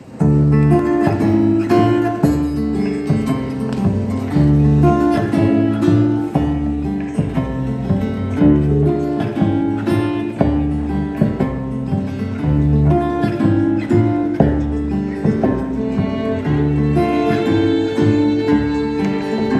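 Live acoustic ensemble playing an instrumental introduction: plucked harp and guitar over a repeating low double-bass figure, with violin. The music starts suddenly right at the beginning.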